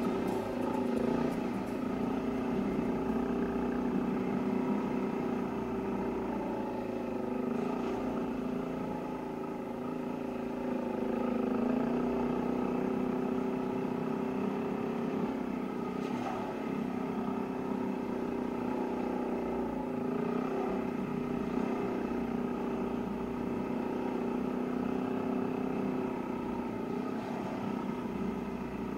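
Engine of the vehicle being ridden, running steadily along a dirt road, its pitch rising and falling slightly with the throttle.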